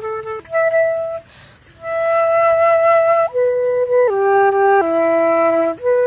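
A flute playing slow, held improvised notes, moving stepwise up and down between pitches, with a short breath pause about a second and a half in.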